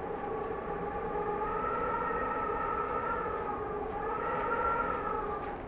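Cold winter wind howling: a whistling, wavering tone that slowly swells and dips in pitch over a low rush of air.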